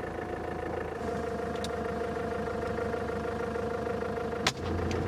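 A vehicle's engine runs steadily. About four and a half seconds in, a single sharp crack sounds: the dart rifle fired at a giraffe.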